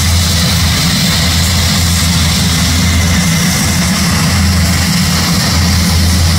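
Embraer A-29 Super Tucano turboprops running on the ground, propellers turning: a steady low hum with an even hiss over it.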